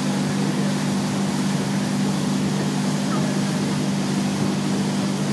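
Motorboat engine running at steady speed under way, a constant low engine tone over an even rush of wind and water noise.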